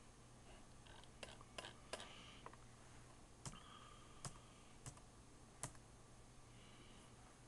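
Faint clicks from a computer's mouse and keys, about seven single clicks spaced apart, over a low steady hum.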